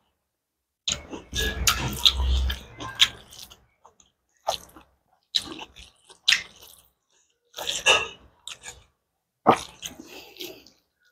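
Close-miked eating sounds: fingers squishing and mixing rice and curry on a plate, with wet mouth smacks and chewing. A dense run of sounds for the first few seconds with a low rumble, then short separate smacks about once a second.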